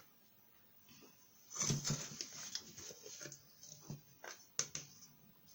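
Irregular scraping and tapping from kitchen utensils being handled, starting about one and a half seconds in.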